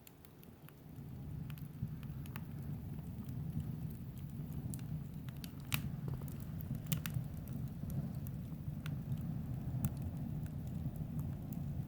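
Open wood fire burning: a low steady rush of flame, with sharp crackles and pops from the burning wood scattered through it.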